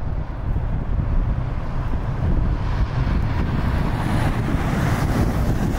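Wind from a snowstorm buffeting the microphone: a loud, uneven low rumble with a rushing hiss that grows stronger about two and a half seconds in.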